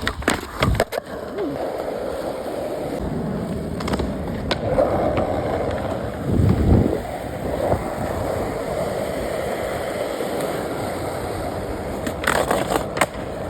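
Skateboard wheels rolling steadily over pavement, with sharp deck clacks in the first second and again near the end, and a heavier low thud about six and a half seconds in.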